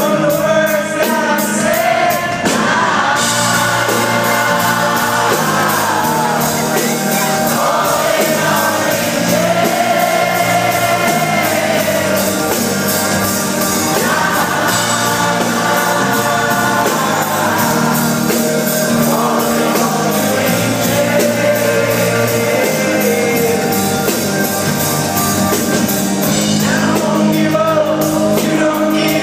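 Live pop-rock band in concert, with a male lead singer over drums and a full band, recorded loud from the audience.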